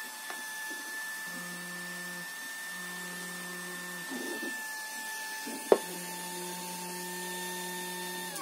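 XHP-50 LED bulb running on a bench power supply, giving a steady high whine while a lower hum cuts in and out several times. There is one sharp click a little over halfway through.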